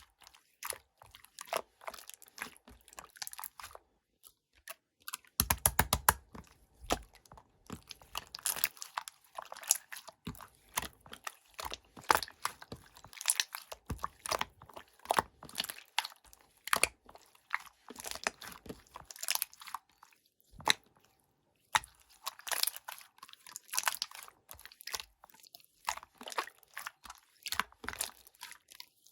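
Pearl slime being pressed and squeezed by hand, giving rapid wet clicks and pops. The clicking pauses briefly twice, about four seconds in and again about twenty seconds in.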